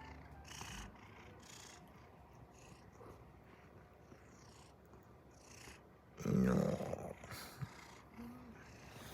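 Domestic cat purring close to the microphone, with a soft rise and fall about once a second. A short, louder sound comes about six seconds in.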